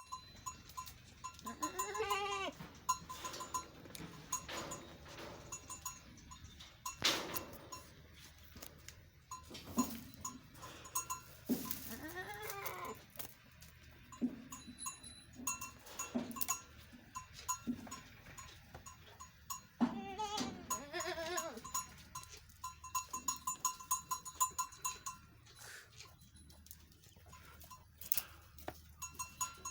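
Sojat goats bleating, with a few long rising-and-falling calls spaced through the stretch. A small bell clinks repeatedly over scattered knocks.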